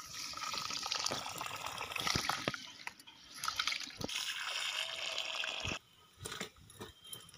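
Water poured from a metal pot onto raw rice in a steel bucket, then hands swishing and rubbing the rice in the water to wash it. The water sound stops suddenly near the end.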